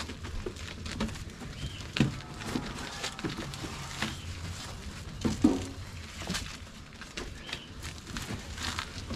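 Irregular knocks and rustles of ears of corn being dropped and packed into an oven.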